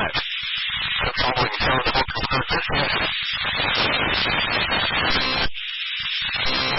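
Weather-radio receiver hissing with heavy static on a weak FM signal. The noise breaks up in short dropouts a few times.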